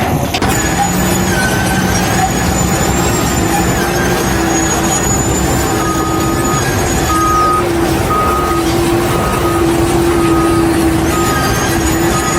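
Heavy vehicle or construction machine running steadily. About halfway through, a short, even beep starts repeating about once a second, like a reversing alarm.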